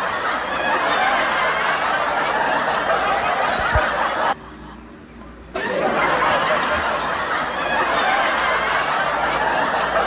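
Many people laughing together as a crowd-laughter clip, cut in abruptly. It breaks off for about a second near the middle and then resumes.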